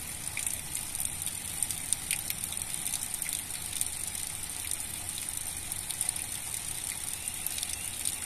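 Steady outdoor background hiss with a bright high-pitched band and scattered faint clicks throughout.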